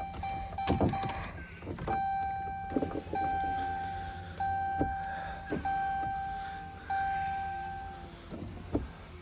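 A truck's warning chime, dinging over and over about once a second with the keys left in the ignition. There are a few clicks and knocks of someone moving about in the cab, and a low steady hum underneath.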